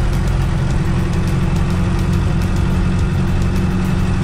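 Bus engine running, heard from inside the passenger cabin as a steady low rumble, with faint light clicks several times a second.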